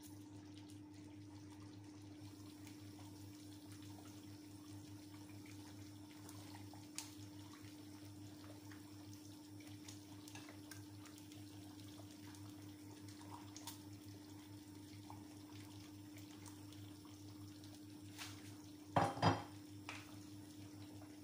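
Faint clinks and soft splashes as pieces of tilapia are dropped into a stainless steel pot of soup, over a steady low hum. Near the end there are two louder knocks in quick succession, a wooden spoon striking the pot.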